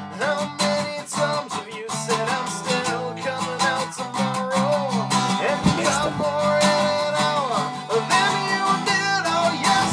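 Background music: acoustic guitar strumming with a sung vocal line.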